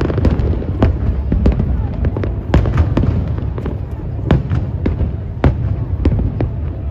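Aerial fireworks bursting: many sharp bangs and crackles at irregular intervals over a steady low rumble.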